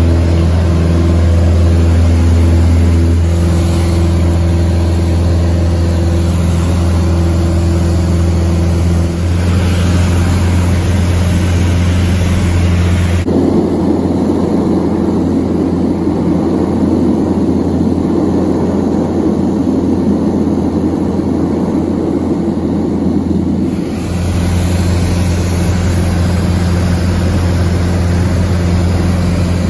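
Piston engine and propeller of a light single-engine airplane running at high power, heard from inside the cabin as a steady drone. The sound changes abruptly about 13 seconds in to a noisier in-flight drone, then switches back about 24 seconds in.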